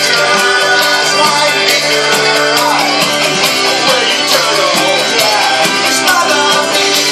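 Rock band playing with electric guitar, a loud, steady instrumental passage with a few sliding guitar notes.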